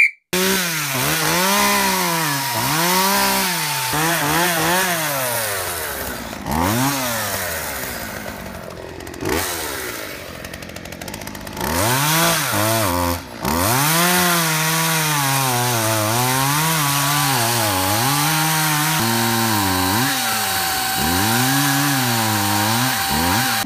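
Chainsaws running and cutting into logs, the motor pitch rising and falling over and over.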